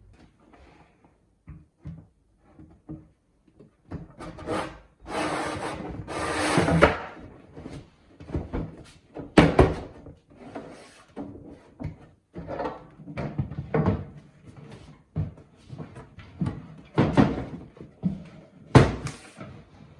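Wooden dresser drawers being handled: irregular scraping slides and sharp wooden knocks and thuds.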